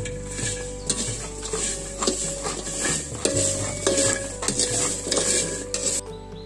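Wooden spoon stirring jackfruit seeds roasting in a heavy pan over a wood fire, with repeated scraping strokes as the seeds rattle against the pan. The stirring stops abruptly near the end.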